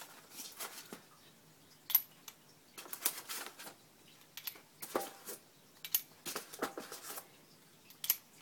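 BB shells being pushed one by one into the cylinder of a Dan Wesson 6-inch airsoft revolver: a series of short metallic clicks, roughly a second apart.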